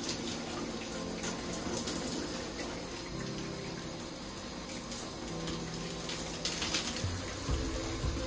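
Water running steadily, over background music with held low notes.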